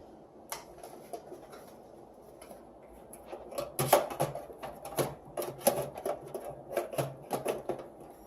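Scattered clicks and knocks of computer parts being handled and fitted inside a desktop PC case, sparse at first and coming thick and fast from about three seconds in.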